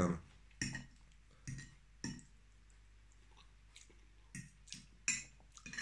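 A metal fork clicking against a plate a handful of separate times, with faint chewing in between.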